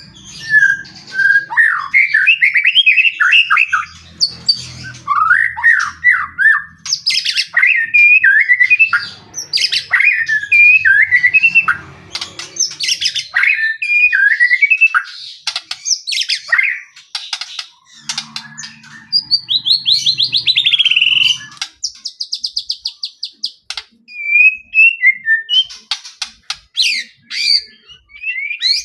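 White-rumped shama (murai batu) singing without pause: a varied run of loud whistled phrases, warbles and quick up-and-down notes, with a fast rattling series of ticks a little past the middle.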